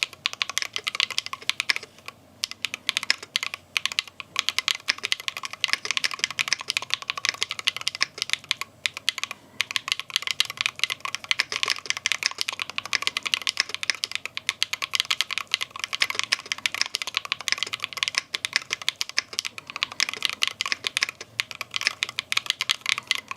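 Fast, continuous typing on a Gateron GT60 Pro Hall-effect magnetic mechanical keyboard with Cherry-profile keycaps: rapid key clacks, with a brief pause about nine seconds in.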